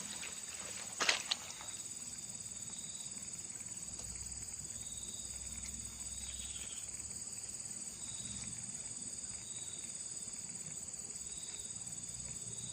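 Steady chorus of insects with a fast, high pulsing, and a shorter call that repeats every second or two. Two quick sharp clicks about a second in stand out as the loudest moment.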